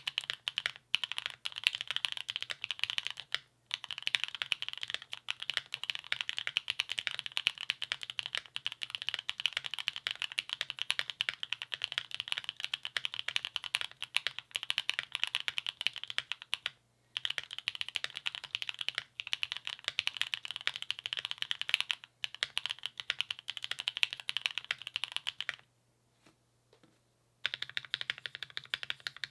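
Custom mechanical keyboard being typed on steadily: a Parallel Sequence with lubed Gateron Cream Soda switches on an FR4 plate and a tape-modded PCB. Fast, continuous keystrokes with a few brief gaps and a pause of about two seconds near the end.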